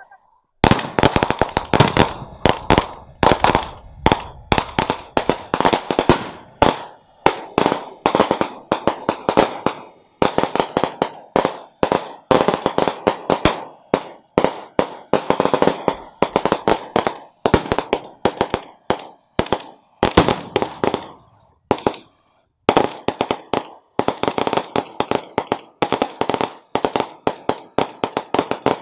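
Strings of firecrackers going off in fast, irregular crackling runs of bangs, with a few short pauses between runs.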